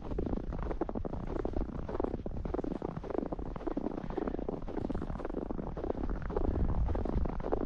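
Footsteps crunching through fresh snow at a steady walking pace, about two steps a second, under a continuous low rumble of wind on the microphone.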